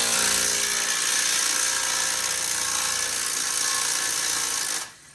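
Power drill with a socket spinning a loosened suspension bolt out, a steady high whine that stops near the end.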